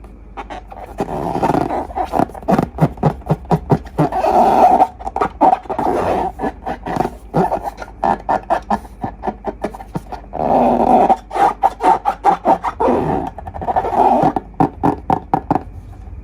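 Slime being squeezed and worked by hand: a fast run of wet clicks and pops with rough, growl-like squelching bursts. It comes in two long stretches with a short lull about ten seconds in.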